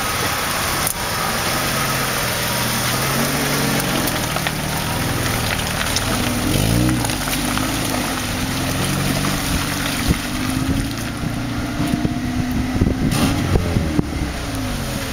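Vauxhall Frontera 4x4's engine revving up and down as it drives forward through deep mud, over a steady hiss.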